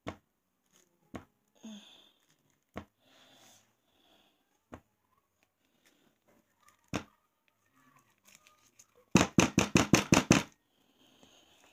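Spatula working a thick, whipped soap mixture thickened with xanthan gum in a glass bowl: scattered soft knocks and squelchy swishes, then near the end a quick run of about eight loud knocks in a second and a half.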